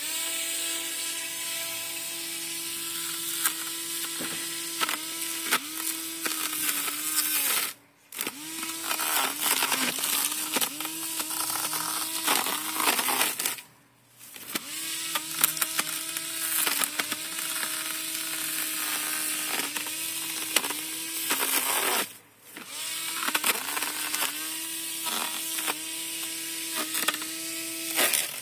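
Small electric grass trimmer running, a steady whine whose pitch sags and recovers again and again as the cutting head bites into weeds. It stops briefly three times and starts up again.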